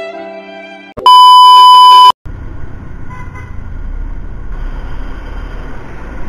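Violin music ends about a second in, cut off by a loud, steady electronic beep lasting about a second. Then a Honda Click 150 scooter rides through traffic: steady engine rumble and wind noise on the camera microphone.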